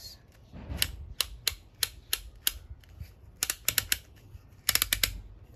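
Irregular sharp little clicks and taps, some in quick runs of four or five, from the opened gearbox housing of a DeWalt 18 V cordless drill and its small hard plastic and metal parts as it is handled and turned over.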